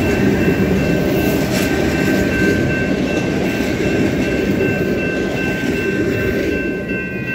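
Passenger cars of a steam excursion train rolling past on the track, a steady rumble and clatter of wheels on rail that eases slightly as the last car moves onto the bridge. A thin, steady high ringing runs over it.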